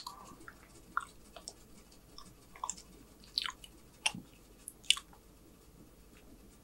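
A person chewing a mouthful of food slowly, with irregular wet mouth clicks and smacks that die away about five seconds in.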